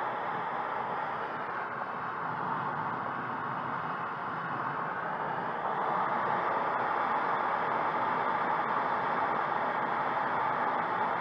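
Steady rush of air streaming past a glider's canopy and fuselage in flight, with no engine; it grows a little louder about six seconds in.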